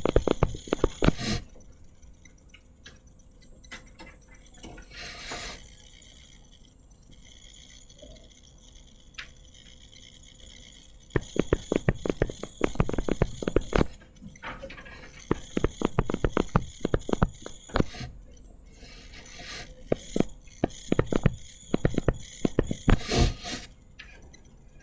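Stylus tip tapping and scratching on a tablet touchscreen during handwriting, in bursts of rapid ticks separated by pauses.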